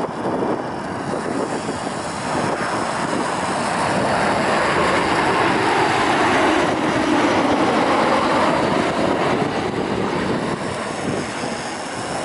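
Boeing 737 jetliner's twin jet engines on low final approach passing close overhead. The rush swells to a peak about halfway through, with a whine that falls in pitch as the plane goes by, then eases off.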